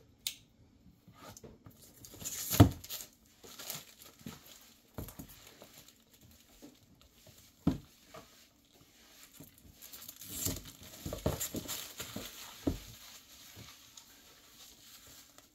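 A cardboard product box being opened and handled: plastic packaging crinkling and tearing, with scattered sharp knocks, the loudest about two and a half seconds in, and a denser stretch of crackling around two-thirds of the way through.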